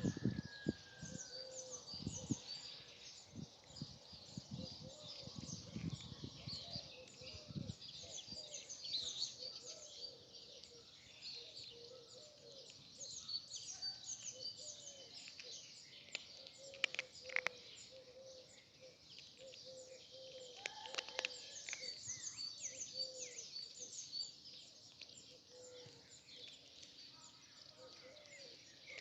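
Many small birds chirping at once in a dense, continuous chatter, with a run of short lower notes beneath it. Low thumps come in the first several seconds.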